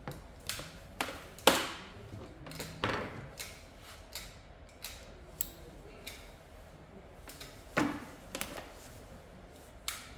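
Irregular sharp clicks and snaps of hand tools working electrical cable as the wire is cut and its insulation stripped, with the cable knocking and rustling in handling.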